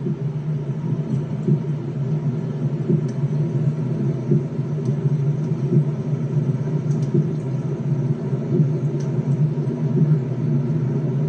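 A steady low rumble with a few faint ticks.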